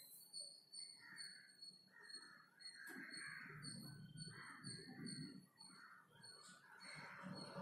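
Crows cawing faintly in the background, over a series of quick, high-pitched bird chirps repeated a few times a second.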